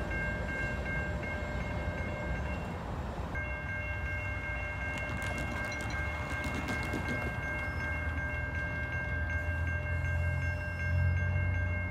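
Railroad grade-crossing warning bell ringing steadily, breaking off briefly about three seconds in. A low train rumble grows louder toward the end as an approaching train nears the crossing.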